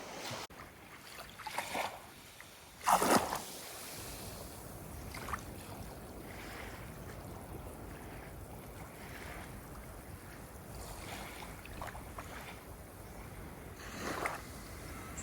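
Ocean water washing and lapping at the shore, with one brief louder splash about three seconds in and a few softer splashes later.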